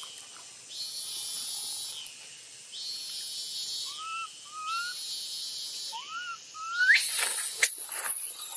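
A baby macaque gives short rising whimpers from about four seconds in, then breaks into loud, shrill crying screams from about seven seconds, with insects droning in pulses behind.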